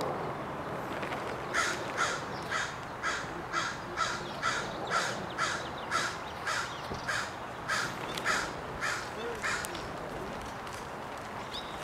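A bird calling over and over, about sixteen short calls at roughly two a second, starting about a second and a half in and stopping a couple of seconds before the end, over steady outdoor background noise.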